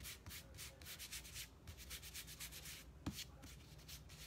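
Hands briskly rubbing a silk-screen transfer against a microfiber towel, faint quick scraping strokes about four or five a second: fuzzing the transfer, picking up a fine layer of lint on its back so it lifts without stretching. A single light knock about three seconds in.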